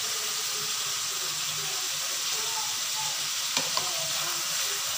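Chicken pieces frying in hot oil in an aluminium karahi, a steady sizzle, as spoonfuls of yogurt go in. One sharp click about three and a half seconds in.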